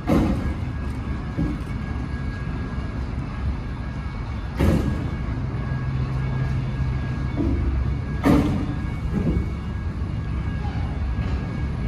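A century-old railway turntable rotating under a heavy steam locomotive: a steady low rumble broken by three sharp metallic bangs, about four seconds apart.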